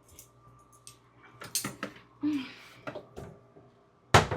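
Kitchen clatter while baking: scattered light knocks and clicks of utensils and dishes being handled, with one sharp, loud knock near the end.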